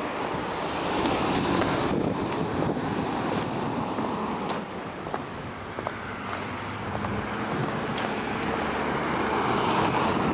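Road traffic going by: a steady hum with two vehicles passing, one swelling about a second in and another near the end. Faint footsteps on a concrete sidewalk can be heard underneath.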